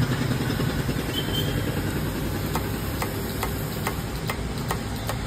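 An engine idling steadily, with a low even rumble. From about halfway through, a run of light clicks comes about two or three times a second.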